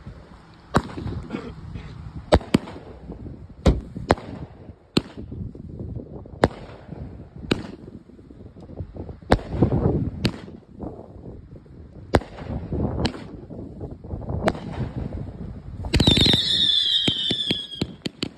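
A 42-shot 500 g firework cake firing: sharp shots and bangs about once a second. Near the end comes a louder cluster with several falling whistles.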